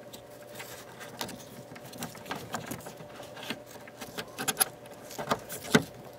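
Plastic wiring-harness connectors and clips being handled and pushed into place under a car's dash: scattered small clicks and rattles, with a few sharper clicks in the second half.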